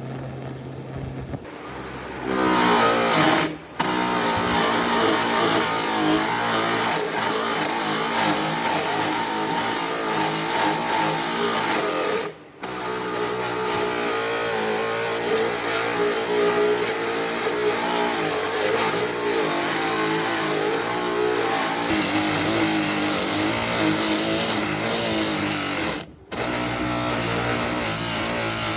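An electric power tool's motor running steadily under load, its pitch wavering slightly, with the sound cutting out briefly three times.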